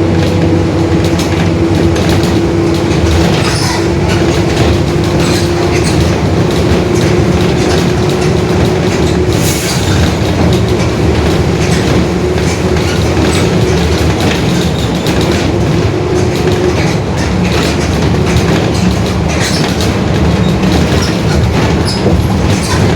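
Mercedes-Benz OF-1721 bus under way, its diesel engine running with a steady droning whine from the differential that fades away after about seventeen seconds, with rattles throughout.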